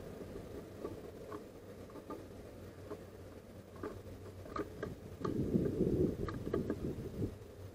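Great tit pecking and tapping at seeds on a wooden feeder tray: a scatter of small, sharp ticks. A brief low rumble comes about five seconds in.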